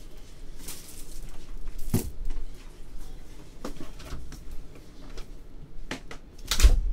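Scattered knocks and clunks of objects being handled, with a heavier thump near the end.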